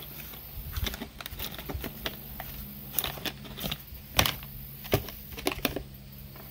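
Irregular light clicks and taps of coins and paydirt being handled into plastic zip-top bags, with a few sharper clicks about four and five seconds in.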